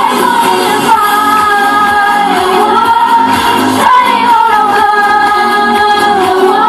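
Pop song playing loudly with a lead singing voice holding long, bending notes over a steady beat.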